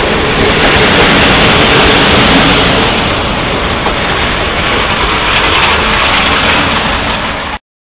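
Double-deck passenger coaches rolling past on the track, a steady loud rush of wheel and running noise that eases slightly as the last coach goes by. The sound cuts off abruptly about seven and a half seconds in.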